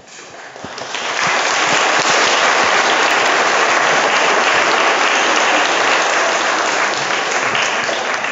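Congregation applauding: the clapping swells over the first second or so, holds steady, and begins to die away near the end.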